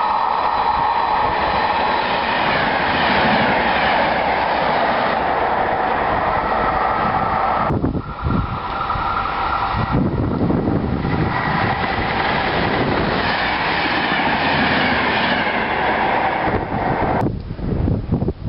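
Two passenger trains passing through stations at speed, one after the other: wheels clattering over the rails with a whine that slowly falls in pitch as each goes by. The first pass-by cuts off suddenly about eight seconds in, and the second train comes through about two seconds later.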